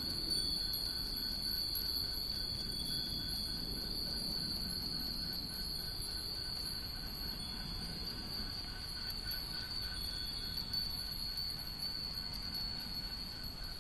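Hundreds of Japanese wind bells (fūrin) strung on overhead lines, tinkling together in the breeze as a dense, continuous high ringing over a low background rumble.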